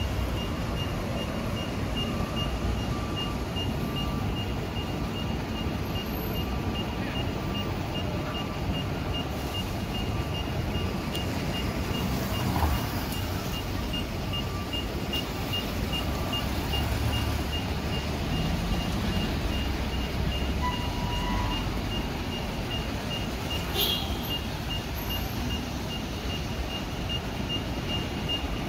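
A high electronic beeper sounding short, evenly spaced beeps about twice a second, with a fainter lower beep in the first half, over the low rumble of idling and passing vehicles in street traffic.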